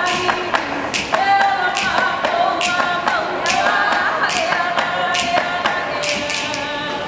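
Hawaiian chant for hula, a voice holding and wavering on long notes, accompanied by percussive strikes of an ipu heke double-gourd drum roughly once a second.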